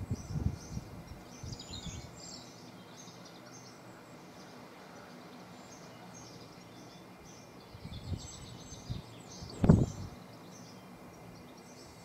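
Male great spotted woodpecker chiselling at its nest hole in a tree trunk: irregular dull knocks in the first second, a few more later, and one loud knock shortly before the end. Small birds sing in the background.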